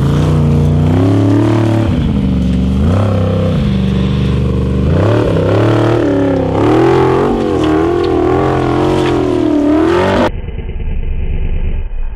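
Formula Offroad hillclimb buggy's engine revving hard, its pitch climbing and dropping again and again as the throttle is worked on the slope. About ten seconds in, the sound cuts to a quieter, duller recording of an engine running.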